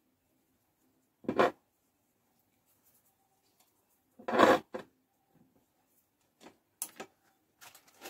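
Handling noises as a pillar candle is picked up and stood on a glass counter: two short loud bursts of noise, about three seconds apart, then a few light clicks near the end.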